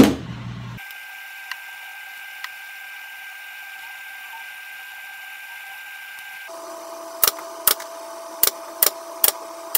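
A 23-gauge pin nailer fires about six quick, sharp shots from about seven seconds in, driving pin nails into a strip of waist molding. Before that there is only a faint steady hum while the strip is held in place.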